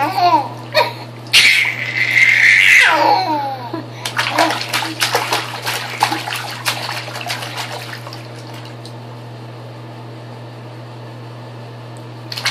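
A baby squealing with delight, then splashing the bath water by slapping it rapidly with both hands for a few seconds before settling; a steady low hum runs underneath.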